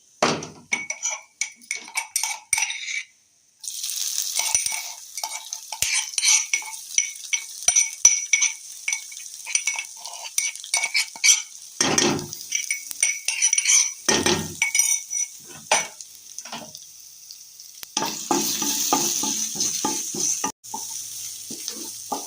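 Crushed garlic and green chilli going into hot oil in a kadhai. The first three seconds hold spoon clinks and scrapes, then sizzling starts about three and a half seconds in and keeps up while a spatula stirs and scrapes the pan. Two heavier knocks come about halfway through.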